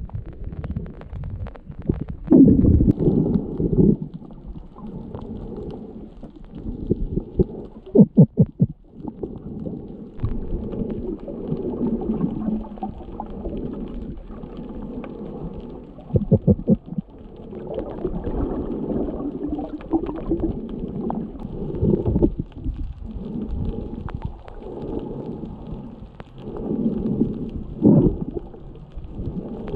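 Muffled underwater sound from a camera held below the surface: water churning and gurgling around it, with several louder bursts, some of them rapid runs of bubbling pulses.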